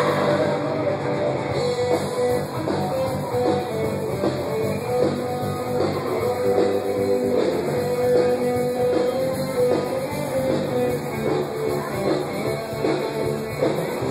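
Rock music with guitar, played loud over a car audio system.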